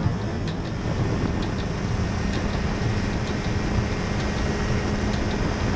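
Flexwing microlight trike's engine and propeller running steadily in low-level flight, a constant hum under wind rushing over the microphone.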